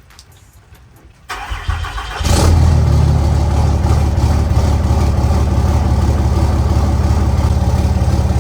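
A vehicle engine cranks for about a second, catches, and then settles into a steady idle.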